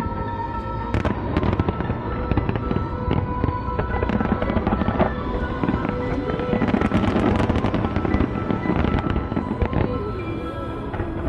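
Fireworks going off in a continuous run of sharp pops and crackles, with music playing underneath.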